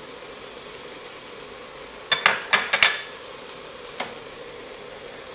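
Chopped bacon, chorizo and vegetables sizzling steadily in a metal stockpot. About two seconds in, a quick run of four or five sharp knocks from stirring against the pot, and one more click a little later.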